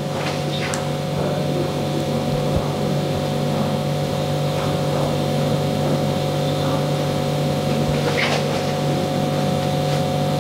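A steady mechanical hum with a low drone and a couple of steady higher tones, over which a few light clicks of barber's scissors trimming a mustache are heard, about a second in and again near the end.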